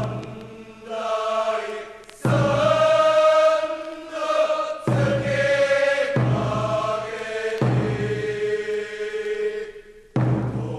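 A group of men singing a slow school song in unison, in long held phrases that each start abruptly.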